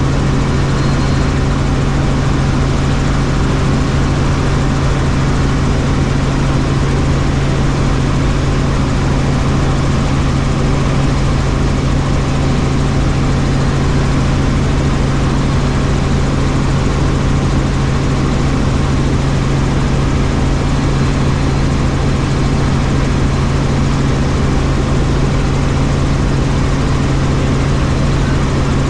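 Helicopter in flight: a loud, steady drone of rotors and turbine with a strong low hum held at one pitch, unchanging throughout.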